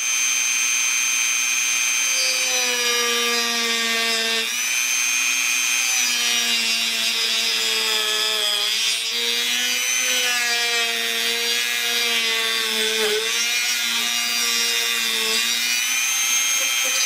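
Dremel rotary tool with a cutoff wheel running steadily while cutting a molded plastic piece. Its high whine sags briefly in pitch about four times as the wheel bites into the plastic.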